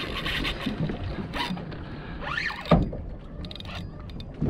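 Steady wind and water noise on a small fishing boat, with one sharp knock a little before three seconds in.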